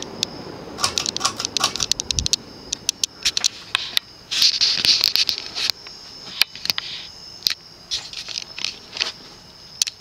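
A Panasonic Lancelot ceiling fan coasting down with its power off, its motor almost silent. Over it come irregular sharp clicks and ticks, some in quick runs, and a short hiss about halfway through.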